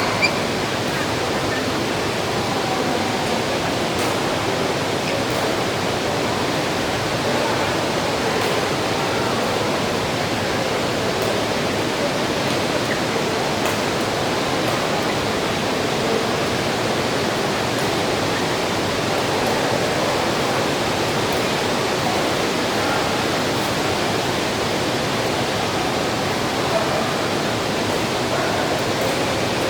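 Steady heavy rain, an even hiss of falling water with a few faint ticks of drops.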